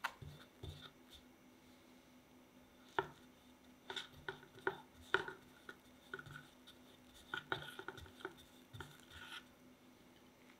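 Metal spatula spreading and smoothing cream cheese frosting on a cake on a metal turntable: soft scrapes of the blade through the cream and light clicks of metal against metal, in scattered strokes.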